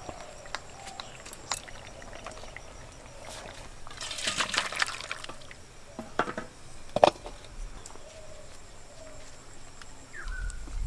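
Thin, watery fish curry poured from a pot into a steel bowl, splashing and sloshing for about a second, then a few sharp metal clinks against the bowl, the loudest about seven seconds in.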